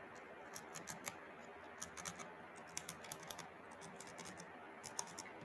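Keys and keycaps of a Cherry mechanical keyboard being handled, an irregular string of light plastic clicks and clacks coming in small clusters.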